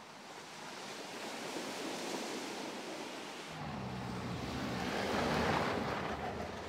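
Mercedes-Benz GLC 300 4Matic SUV driving over a dirt track: rushing tyre and wind noise, with a low engine hum coming in about halfway, swelling as the vehicle passes closest and then easing away.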